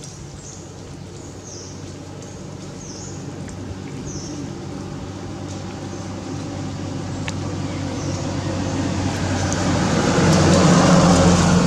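A motor vehicle's engine on the road, growing steadily louder as it approaches, loudest near the end.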